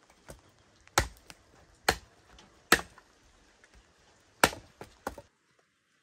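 Wood being chopped into kindling with a hand-held blade: a string of sharp, single chops, four of them loud, with a couple of lighter ones after the last. The sound stops abruptly a little before the end.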